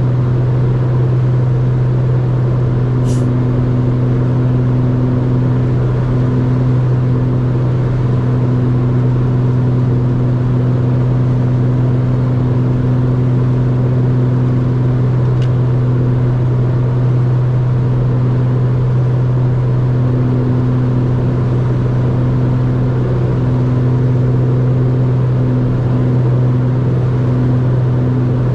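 A Beechcraft B60 Duke's two turbocharged Lycoming TIO-541 piston engines and propellers running in flight: a steady low drone, with a higher hum that comes and goes.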